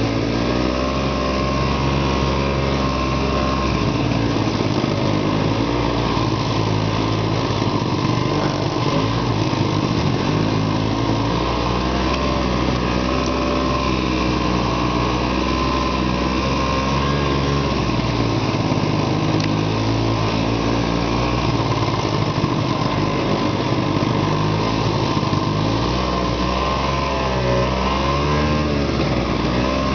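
Arctic Cat Panther snowmobile's two-stroke engine running under way, heard from the seat, its pitch rising and falling with the throttle as the sled works through brush and snow.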